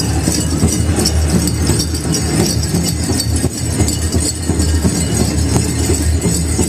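Powwow drum group drumming and singing for a grass dance, loud, with a heavy steady low rumble on the camera's microphone.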